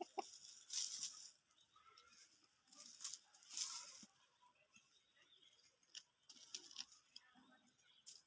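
Faint rustling and crunching, a few short scratchy bursts with scattered clicks between them.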